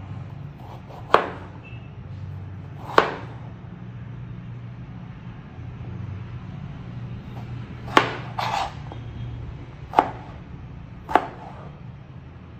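Large kitchen knife slicing through a peeled raw potato and knocking on a plastic cutting board: five sharp chops, a second or a few seconds apart.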